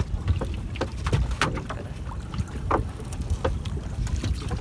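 Scattered knocks and handling noises as a fishing line is worked over the side of a small bamboo-outrigger boat, over a steady low rumble.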